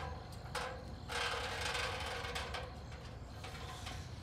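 A long ladder being lowered from a wall and carried: rattling and scraping of its rails and rungs, loudest for a second or two early on, then fainter clatter.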